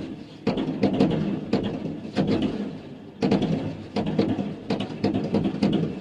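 Fireworks going off: a run of sharp bangs from bursting shells, several a second, with a brief lull a little before halfway and then a dense cluster of bursts.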